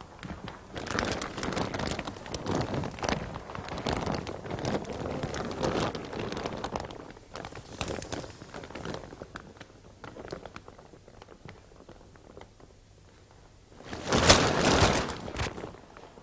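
Large clear plastic sheet crinkling and rustling as people shift around underneath it, in irregular bursts. It quietens for a few seconds, then a loud burst of crinkling comes near the end.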